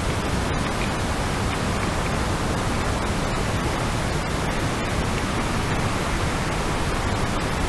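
Small rechargeable electric air pump running steadily, blowing air into an inflatable sleeping mat, with an even hiss that holds level throughout.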